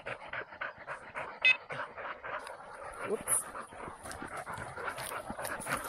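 English setter panting hard at close range, with one brief high whine about a second and a half in, over quick rustling footsteps in dry crop stubble.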